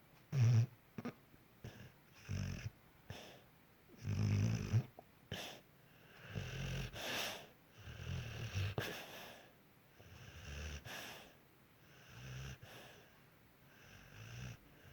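Pit bull snoring in its sleep: a run of uneven snoring breaths every second or two, with a few short snorts between them. The loudest snore comes about half a second in.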